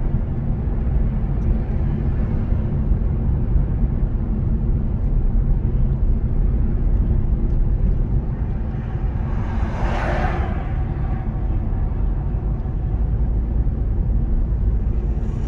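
Steady low rumble of engine and tyre noise heard inside a moving car's cabin, with a brief rushing swell of noise about ten seconds in.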